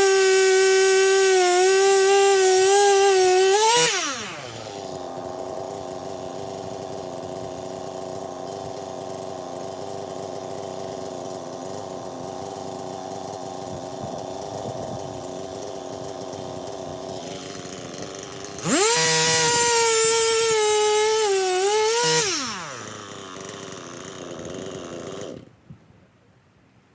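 Stihl MS 261 C-M two-stroke chainsaw cutting wood at full throttle, the pitch dipping under load, then dropping to idle. About two-thirds of the way through it revs up for a second cut of a few seconds, falls back to idle and is switched off near the end.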